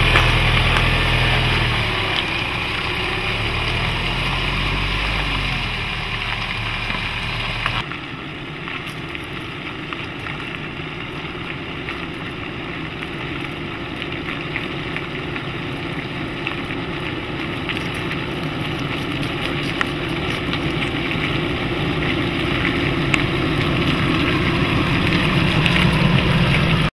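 Nissan Navara NP300's 2.3-litre four-cylinder turbodiesel running at low revs as the pickup drives slowly across a steep side slope, its pitch rising and falling a little. About eight seconds in the sound changes abruptly to a rougher, noisier engine sound that grows louder toward the end.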